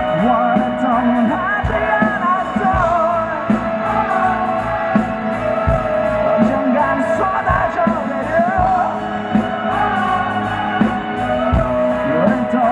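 Live rock band playing loudly, with drums, electric guitars and bass under a wavering melody line.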